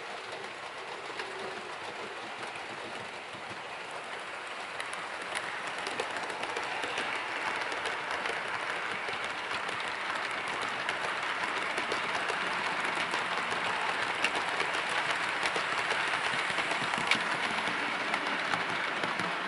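Bachmann OO gauge Class 90 model locomotive and its train of coaches running along the model track: a steady rolling rattle of small wheels on rail with scattered clicks, growing louder as the train comes near and staying loud as it passes.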